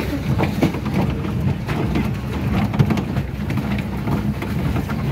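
Swan pedal boat under way: its paddle wheel churns the water with a steady low rumble, dotted with many small splashy clicks.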